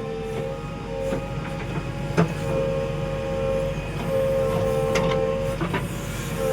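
JCB 3DX backhoe loader working: its engine and hydraulics run with a steady whine that wavers in pitch as the load changes. Sharp clanks come about two seconds in and again about five seconds in.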